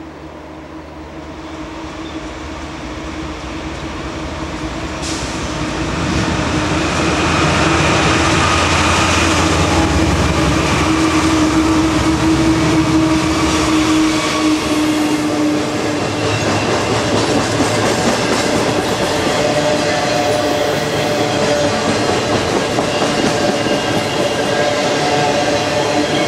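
CSX freight train approaching and rolling past. It grows louder over the first six seconds, then holds steady as the cars clatter by on the rails.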